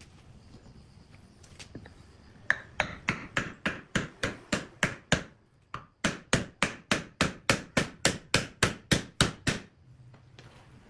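Hammer blows driving a wooden block down into the rotted hollow of a log, a steady run of sharp knocks at about three to four a second. The blows start a couple of seconds in, pause briefly about halfway, then go on until near the end.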